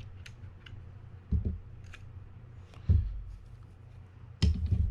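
Hand work on a spinning fishing reel on the bench: light metallic clicks of a small tool and reel parts being handled, with three dull knocks about a second and a half apart over a steady low hum.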